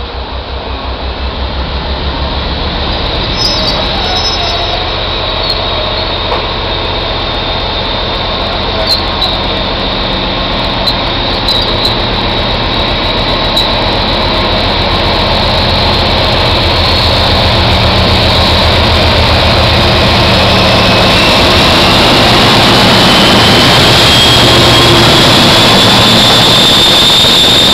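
British Rail Class 56 diesel-electric locomotive working hard under full power (a thrash), its Ruston-Paxman V16 diesel engine growing steadily louder as it approaches and passes close by. Scattered sharp clicks sound in the first half, and a whine rises in pitch over the last several seconds.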